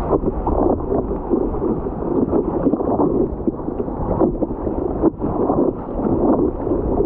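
Ocean water sloshing and splashing around a camera in a waterproof housing as it bobs in the swells, the sound muffled and rushing.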